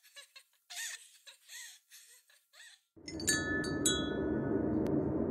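Short, soft vocal sounds for about three seconds, then a steady low drone sets in with a few bright chime strikes ringing over it.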